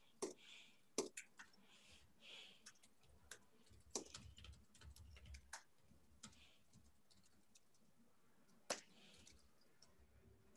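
Faint, irregular clicks and taps, about a dozen of them, unevenly spaced, with soft rustling between them over near silence.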